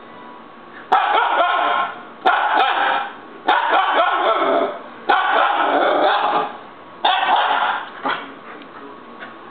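Siberian Husky puppy yelling in a fit: five loud, drawn-out outbursts of about a second each, with short pauses between them.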